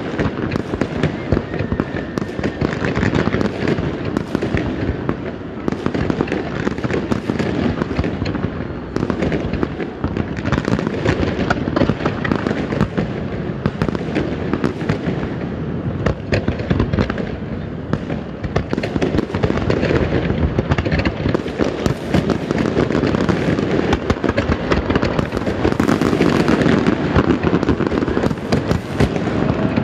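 Fireworks display: a dense, unbroken barrage of aerial shell bursts, many bangs and crackles overlapping.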